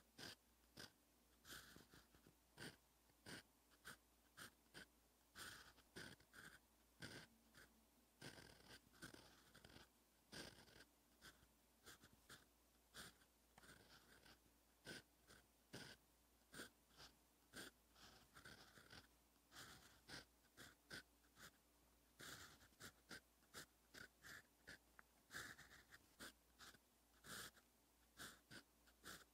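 Faint scratching of a fountain pen nib on paper in many short, irregular strokes as handwriting is written.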